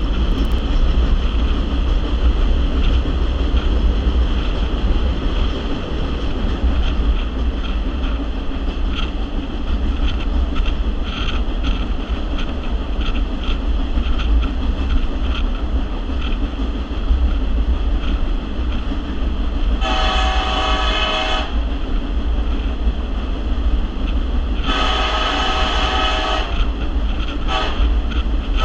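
Steady rumble of a train rolling along, with wind buffeting, heard from an open-air car. Two-thirds of the way through, the diesel locomotive's air horn sounds two long blasts and a short one, and a fourth begins right at the end: the long-long-short-long grade-crossing signal.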